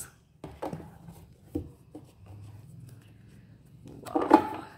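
Hands handling a tarot deck and its cardboard box: light rubs and clicks as the cards are slid out and turned over, with one louder brief sound about four seconds in.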